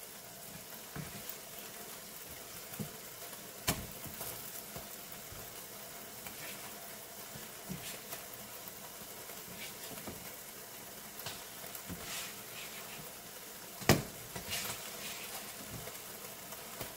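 Pancakes sizzling faintly on an electric griddle, a steady low hiss, with a few sharp taps and scrapes of a silicone spatula as the pancakes are lifted onto a plate; the loudest tap comes about 14 seconds in.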